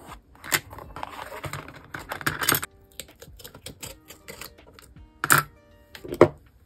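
Paper and card being handled and pressed together: rustling, with several sharp taps and clicks, the loudest about five and six seconds in. Soft background music plays underneath.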